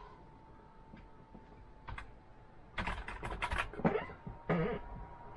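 Keys clacking on a rainbow light-up computer keyboard: a single press about two seconds in, then a quick run of presses and a short burst near the end, over a faint steady hum.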